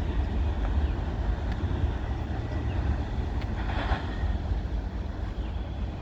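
Norfolk Southern intermodal freight train running away along the track just after its last car has passed, a steady low rumble of wheels on rail that eases slightly toward the end. A short brighter noise cuts in about four seconds in.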